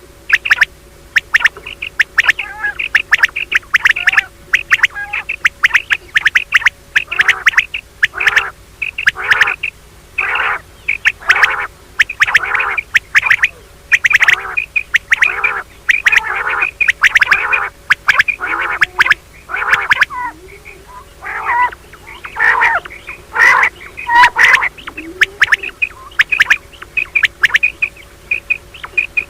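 Common quail calling in a rapid, continuous series of short notes, with louder, harsher calls through the middle of the stretch. These are female quail mating calls of the kind played to lure quail when hunting. A faint steady hum runs beneath.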